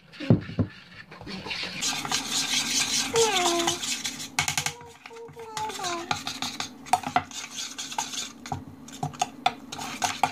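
A metal spoon stirring a thick flour-based play-dough mixture in a stainless steel saucepan, scraping and clinking against the pan's sides and bottom in quick, irregular strokes.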